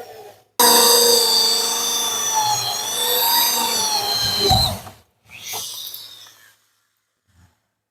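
Corded electric drill boring the latch hole into the edge of a wooden door through a door-lock jig, running with a steady whine for about four seconds and then winding down. A second, shorter burst of drilling follows.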